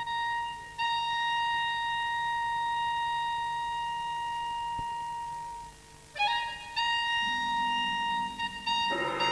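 Instrumental music: a high woodwind holds one long note, dies away, then comes back on the same pitch in short repeated attacks. Lower instruments join near the end and the sound grows fuller.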